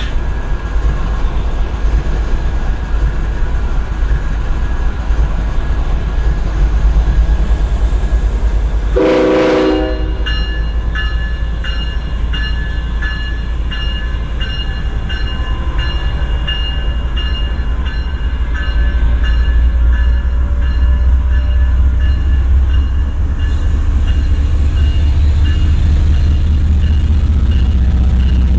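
GE ES40DC diesel locomotive's 12-cylinder engine running with a heavy low rumble. About nine seconds in, a short blast of its multi-chime air horn, then a bell ringing steadily; the engine grows louder about two-thirds of the way through.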